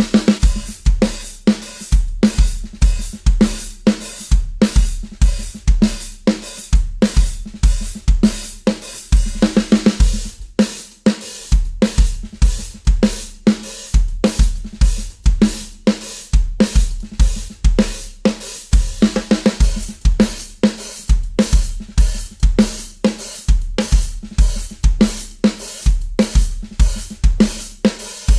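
Drum kit played in a steady, driving groove: bass drum, snare and cymbals struck about three to four times a second. The bass drum drops out for a moment every few seconds.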